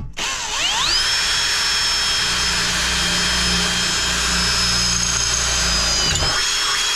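Kobalt 24V cordless drill boring a pilot hole with a small bit through a metal mounting plate. The motor whine rises to a steady pitch within the first second, holds for about five seconds, dips briefly near the end, then stops.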